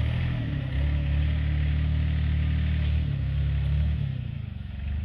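A working machine's diesel engine running steadily under load. Its note shifts about a second in and again near three and four seconds, then eases briefly near the end.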